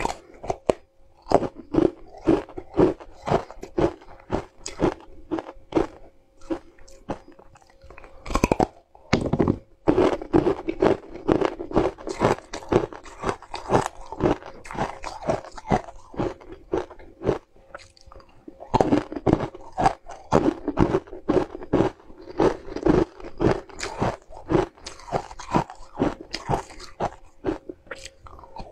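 Close-up crunching and chewing of green powder-coated ice blocks: rapid crisp crunches, about two or three a second, with a short pause a little past halfway and a couple of heavier thuds about a third of the way in.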